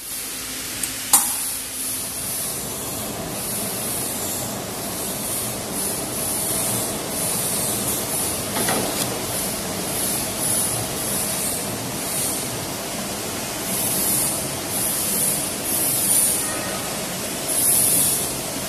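Automatic stretch-wrapping pallet machine running: a steady mechanical hum from the turntable and powered pre-stretch film carriage, with repeated high, hissing swishes, and a sharp click about a second in.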